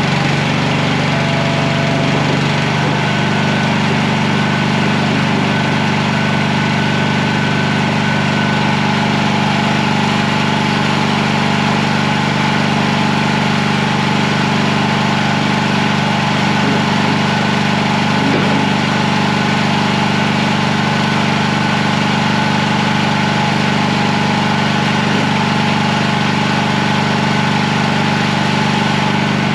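Mini skid steer's engine running steadily at a constant speed, with a slight change in its note about two to three seconds in.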